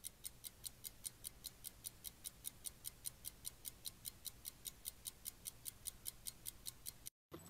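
Typewriter sound effect for a title typing out letter by letter: a steady run of light key clicks, about five a second, that cuts off suddenly near the end.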